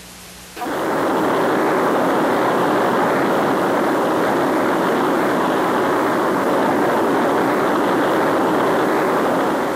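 Saturn V liftoff: the roar of the first stage's five F-1 rocket engines, a loud steady rushing noise with little bass. It cuts in sharply about half a second in.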